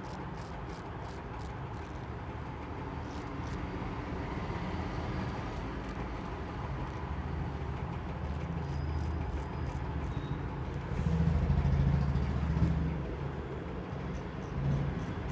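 Road traffic rumbling, with a vehicle passing louder about eleven seconds in.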